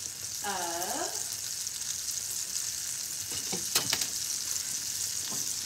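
Diced onion sizzling steadily as it sautés in melted buttery spread in a small skillet, with a couple of sharp clicks a little past the middle.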